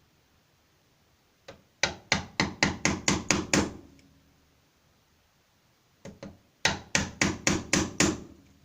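Hammer striking a wood chisel, cutting a recess into a wooden door to take a lock's plastic cup. Two runs of quick, even blows about four a second, each opening with a light tap or two, the first run of about eight strikes and the second, near the end, of about six.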